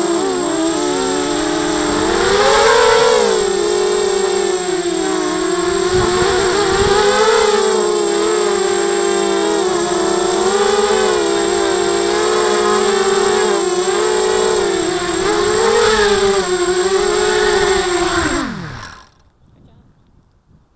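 ZMR 250 mini quadcopter's brushless motors and propellers buzzing, close on the onboard camera, the pitch wavering up and down with the throttle. Near the end, as the quad settles on the grass, the pitch slides down and the motors stop.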